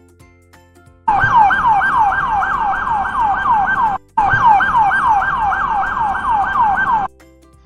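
Ambulance siren in a fast yelp, each cycle sweeping down in pitch about five times a second. It sounds in two stretches of about three seconds, with a brief break between them.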